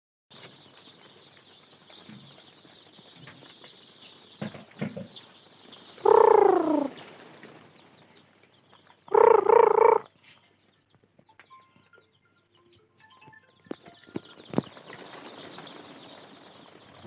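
Sonali chickens calling: two loud calls, the first falling in pitch about six seconds in and the second wavering about nine seconds in, with a few short knocks between them.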